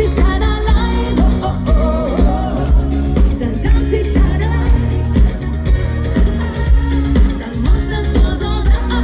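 Live schlager pop music: a woman singing over a band with a steady, pulsing bass beat.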